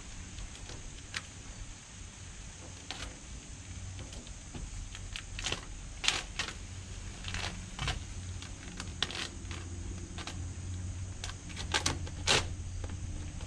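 Chrome vinyl wrap crinkling and rubbing as it is pressed and smoothed by hand around a pickup's door handle: irregular short crackles and scrapes, more frequent in the second half, over a steady low hum.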